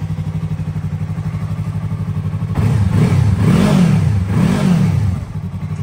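A Yamaha R3's parallel-twin engine idles through an aftermarket exhaust. About two and a half seconds in, the throttle is blipped twice, the revs rising and falling each time, before the engine settles back to a steady idle.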